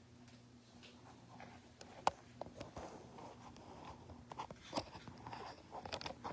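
A steady low electrical hum, and from about two seconds in, scattered small clicks, knocks and rustles of handling and movement.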